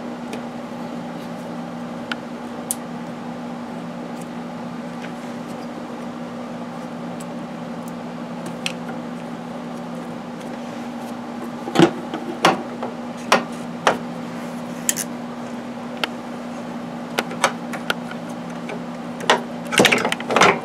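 Scattered clicks and knocks from about halfway in, as parts and fittings are worked by hand inside a BMW K1200LT's frame while the rear shock is being removed. A steady low hum runs underneath.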